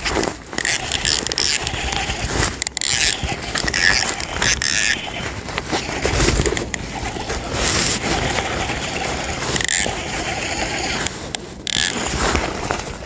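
Fishing reel being cranked to bring in a hooked bass, mixed with scraping and rubbing of hands and gear close against the microphone.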